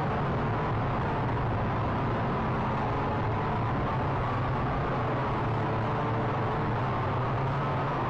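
Syma X8C quadcopter's motors and propellers running steadily, heard close up from its own onboard camera: a constant whirring hum with a whine that wavers slightly in pitch as the motors change speed.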